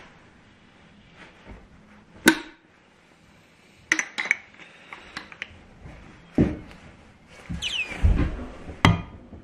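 Scattered sharp clinks and knocks from a spoon against a glass measuring cup of liquid plastic and from a metal bait injector being handled. The loudest hit comes about two seconds in, and a brief squeak comes near the end.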